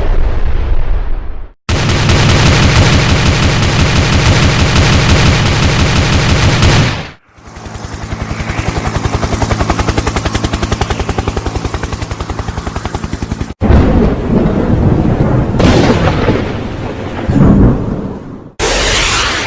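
A string of war sound effects cut one after another: the tail of an explosion, then about five seconds of continuous rapid machine-gun fire. Next comes about six seconds of an even, fast pulsing, then rumbling blasts that swell and fade, with a fresh blast starting near the end.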